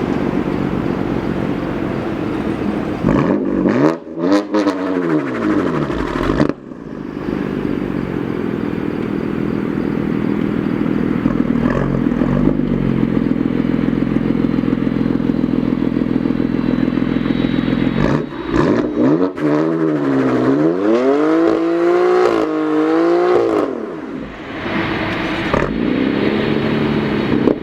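BMW F80 M3's twin-turbo inline-six running and being revved: a few quick rises and falls in engine speed about four seconds in, then a longer run of repeated revs later on, between stretches of steady running.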